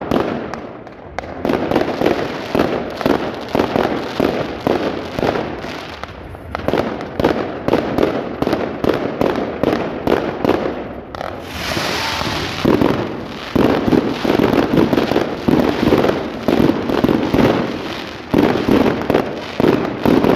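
Fireworks going off in rapid succession: a dense string of bangs and crackling shots, several a second, with short lulls and a brief hiss about twelve seconds in.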